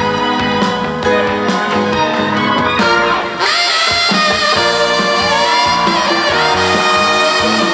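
Instrumental break of a Korean trot song: a lead melody with sliding notes over a backing track with a steady beat.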